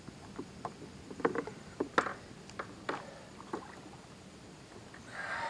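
Irregular knocks and clicks of gear and paddle against a plastic fishing kayak as a redfish is lifted out of the water, the loudest knocks about two seconds in, with a short rushing noise near the end.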